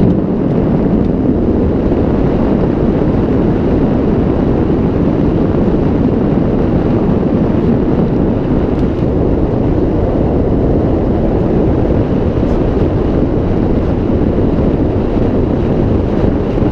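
Steady road and wind noise of a moving car, an even rush picked up by the microphone from inside the car.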